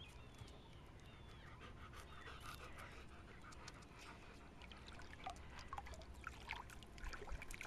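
Faint panting of an Australian Shepherd, with small scattered clicks in the last few seconds.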